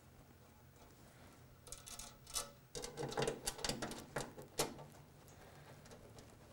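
Light clicking and rattling of a 3/16-inch nickel-copper brake line and a small aluminum line clamp being fitted together by hand. The string of clicks starts about two seconds in and stops shortly before five seconds, leaving a faint low hum.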